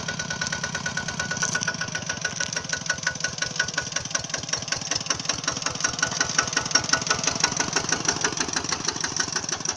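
Small engine of a model two-wheel tractor running steadily, a rapid, even chugging with a steady high whine over it.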